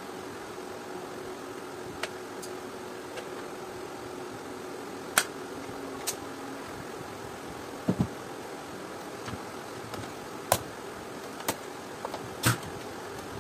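Scattered sharp plastic clicks and knocks as the housing parts of a Panasonic NI-U550 steam iron are handled and fitted together. The loudest comes near the end. A steady background hum runs underneath.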